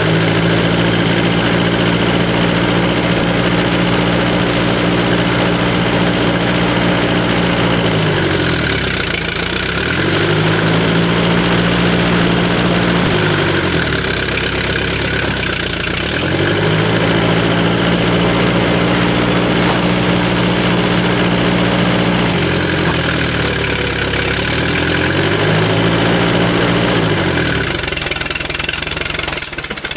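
Allis-Chalmers H3 crawler dozer engine running hard, its speed sagging and climbing back up four times. This is the engine lugging under load as the blade pushes against a tree.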